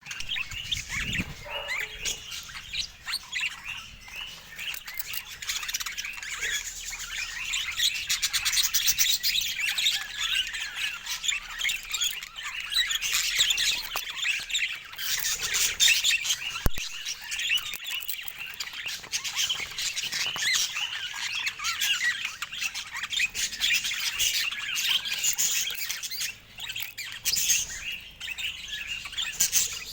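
Several budgerigars chirping and chattering without pause.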